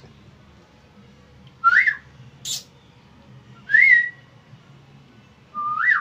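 Three short whistles about two seconds apart, each rising in pitch and then dropping, from either the man or the pet cockatiel. A brief sharp high sound falls between the first two.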